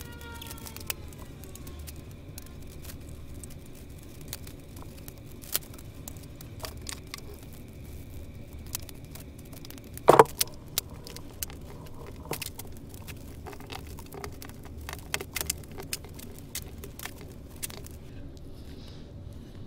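Metal spring clamps and locking C-clamps clicking and clattering as they are set on bent-wood laminations around a form. There is a scatter of sharp clicks, and the loudest metallic clacks come about ten seconds in, as a locking clamp is squeezed shut.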